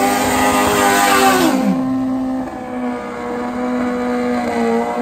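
Pro Stock drag bike's naturally aspirated Suzuki four-cylinder engine held at high revs during a burnout, the rear tyre spinning in a hiss. About a second and a half in the revs drop sharply and the engine runs on at lower revs, rising briefly again near the end.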